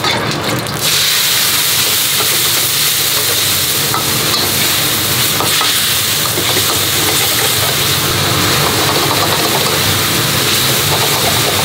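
Sauce and fried pieces hit a hot wok about a second in and sizzle loudly and steadily, with a metal spatula clicking and scraping against the wok as they are stirred. The big gas wok burner rushes underneath.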